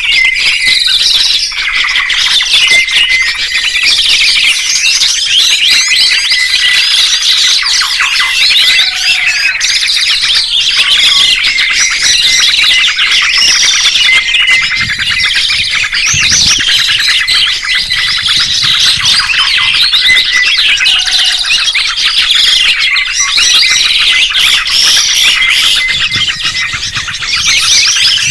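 Songbirds singing loudly and without a break: rapid, overlapping chirps, trills and whistled sweeps.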